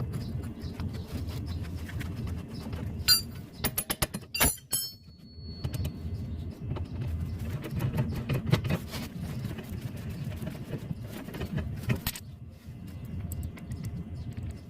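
Metal hand tools and parts clinking, with a cluster of sharp, ringing clinks about three to five seconds in, over a steady low hum.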